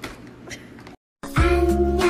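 About a second of faint room noise, a short dead gap, then loud music starts with a heavy bass and a held melody line.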